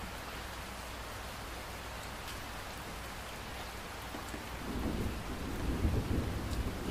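Steady rain hiss, with a low rumble of thunder swelling about two-thirds of the way through.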